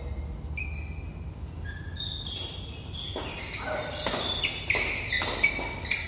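Badminton doubles rally: shoes squeaking on the court floor in short high-pitched chirps, with the crisp smacks of rackets hitting the shuttlecock coming thick and fast in the second half.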